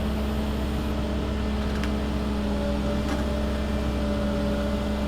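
Excavator's diesel engine running steadily at an even pitch, with a couple of faint clicks about two and three seconds in.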